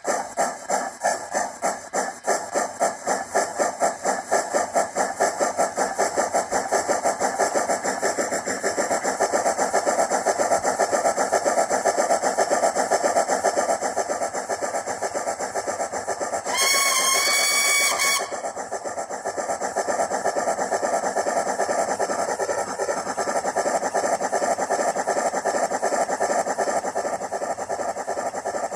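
Digitrains Zimo sound decoder in an OO gauge Hornby D16/3 model playing steam locomotive exhaust chuffs through the model's small speaker. The beats quicken from a few a second to a rapid run as the model speeds up. A little past halfway a steam whistle sounds once, for about a second and a half.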